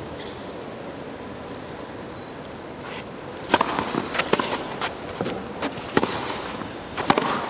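Quiet crowd hush on a grass tennis court, then about three and a half seconds in a serve followed by a rally of sharp racket-on-ball hits roughly a second or more apart.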